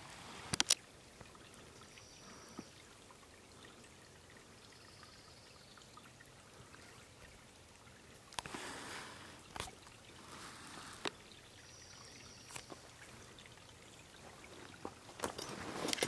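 A small waterfall trickling thinly over rock into a shallow creek, a faint steady splashing. A few sharp knocks and brief rustles sound over it, and footsteps on a dirt trail begin near the end.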